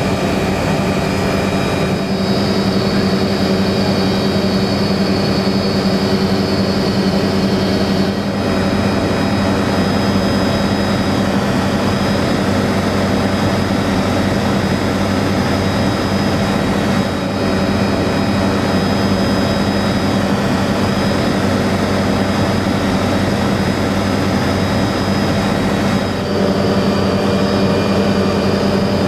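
Helicopter engine and rotor noise heard from inside the cabin in flight: a loud, steady drone with a strong low hum and steady whine tones, shifting slightly in tone a few times.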